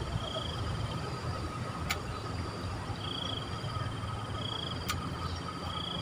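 Insect trilling steadily at a high pitch, the trill swelling louder about every second and a half, over a steady low rumble. Two sharp clicks, about two and five seconds in.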